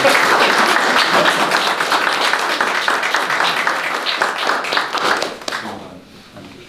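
A small group applauding, many hand claps at once, dying away about five to six seconds in.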